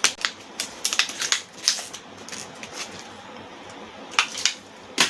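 Small product packaging being handled and opened by hand: a quick run of crackles and clicks in the first two seconds, then a few more sharp clicks near the end.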